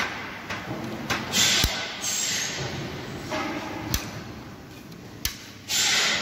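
Akfa window sash and its opening hardware being worked: sharp clicks of the fittings and rushes of sliding, hissing friction as the sash swings open on its stay arms, the loudest rush near the end.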